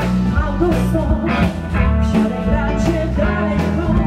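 Rock and roll music from a band, with drums keeping a beat under bass, guitar and a singing voice.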